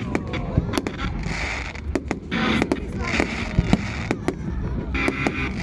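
Fireworks exploding at a display: many sharp bangs in quick, irregular succession over a continuous low rumble.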